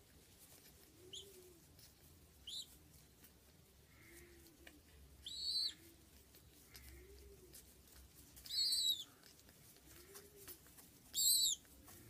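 A squab (young pigeon) giving short, high-pitched begging squeaks while it is syringe-fed. There are five squeaks a few seconds apart; the last three are louder.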